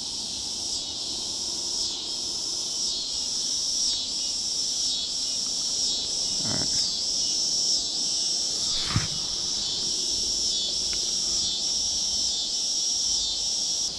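A steady high chorus of insects calling, swelling and dipping about once a second, with two brief knocks near the middle.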